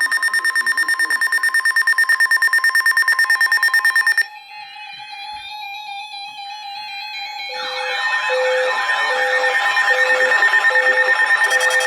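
Electronic alert tones. A rapidly pulsing two-tone beep stops abruptly about four seconds in. A steady tone with slow sliding up-and-down tones follows, and it builds into a layered wavering siren-like wail over an evenly pulsing low beep.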